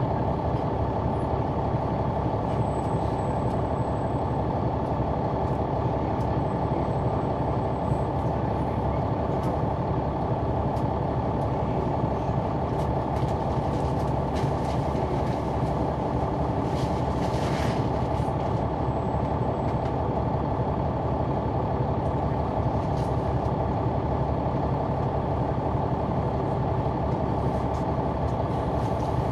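Caterpillar C-9 ACERT diesel engine of a Neoplan AN459 articulated bus running steadily, heard from the back of the passenger cabin. It drones at an even pitch and level throughout. A short hiss comes about two-thirds of the way through.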